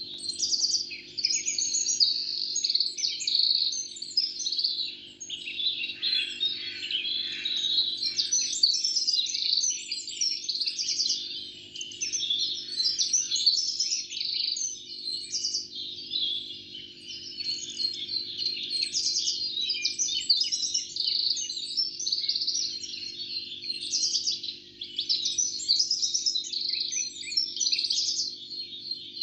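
Many small birds chirping and trilling in a dense, continuous chorus, with a faint steady low hum underneath.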